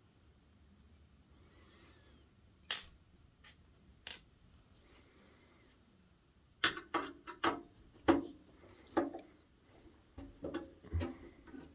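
Sharp clicks and light knocks of a screwdriver, screws and the plastic case of an electric space heater being handled during disassembly. Two single clicks in the first half, then from about two-thirds of the way in a quick irregular run of clicks.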